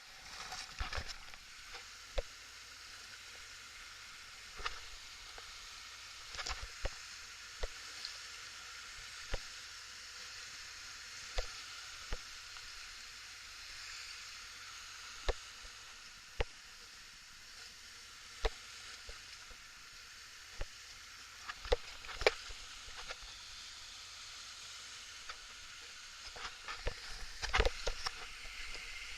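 Rushing river water as a steady wash, with irregular sharp clicks or splashes every second or two, busier and louder near the end.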